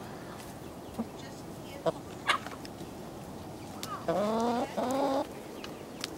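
Chickens calling: a few short clucks, then about four seconds in a chicken gives two drawn-out calls back to back, the loudest sound.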